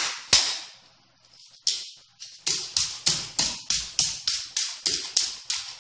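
A knife blade repeatedly striking a stainless-steel chainmail arm guard, each blow a sharp metallic clash with the rings jingling. There is one blow at the start, two more around a second and a half in, then a quick run of about three strikes a second.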